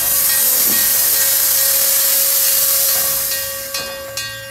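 Steam hissing from Canadian National #7470, an 0-6-0 steam switcher, as it vents: a loud, steady hiss that starts suddenly and fades out in the last second.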